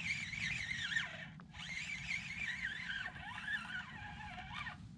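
Spinning reel being cranked to bring in a hooked fish: a whining gear whir that wavers in pitch with the speed of the cranking. It comes in two stretches, with a short break about a second in.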